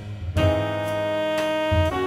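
Instrumental music: a long held melody note over a bass line, moving to a new note near the end.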